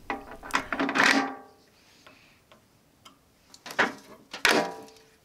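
Clinks and taps of metal landing-gear parts, with short ringing, as model-airplane wheels are fitted onto the gear legs: one cluster about a second in and another about four seconds in.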